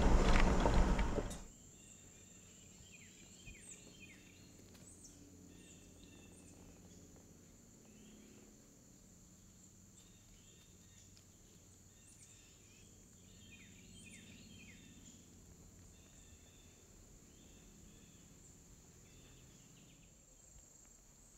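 Vehicle cabin noise for about the first second and a half, cutting off sharply. Then quiet woodland ambience: a steady high-pitched insect drone, with small birds giving short, falling chirps every so often.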